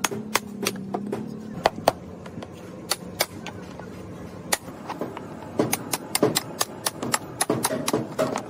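Hammer and chisel striking the case of an old lead-acid battery: sharp, irregular knocks, a few at first, then coming quickly in the second half.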